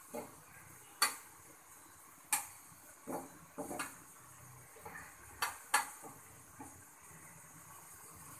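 Metal spatula clinking against a frying pan and plate: about ten sharp, irregular clinks. Under them is a faint steady hiss of pitha frying in oil.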